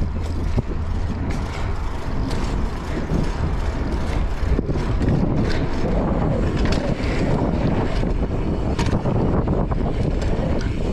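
BMX tyres rolling over a concrete skatepark, with wind rumbling on the microphone and scattered clicks and knocks from the bike.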